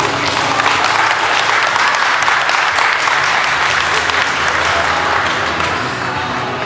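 A group of people clapping, building up in the first second, holding steady and thinning out near the end, with a few voices among it.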